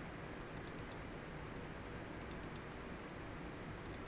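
Faint computer mouse clicks in three quick bursts of three or four, over a steady low hiss.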